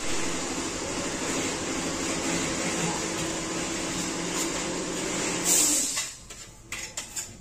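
A steady motor whir with a faint hum under it, dying away about six seconds in, followed by a few light clicks and knocks.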